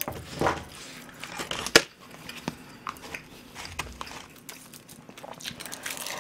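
Close-miked eating sounds: chopsticks clicking against a rice bowl, the crinkle of a sheet of dried laver (gim) and chewing, with a sharp click about two seconds in.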